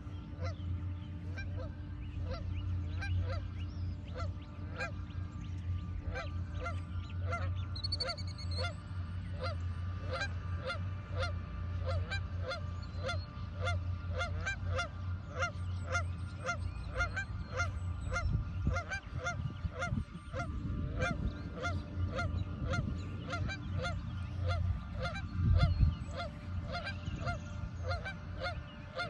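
Geese honking over and over, about two honks a second, a lower and a higher call alternating, with a steady low rumble underneath.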